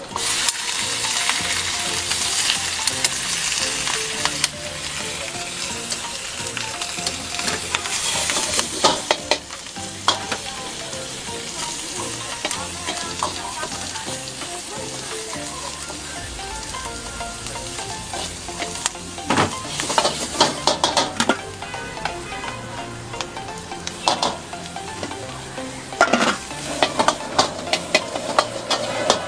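Bok choy sizzling in a hot wok as it is stir-fried with a metal ladle, loudest in the first several seconds. Quick runs of metal clanks and scrapes from the ladle against the wok come about a third of the way in, twice in the second half, and near the end.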